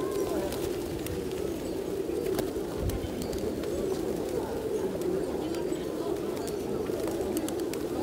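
A large flock of feral pigeons cooing, many coos overlapping into a steady continuous chorus, with short clicks here and there.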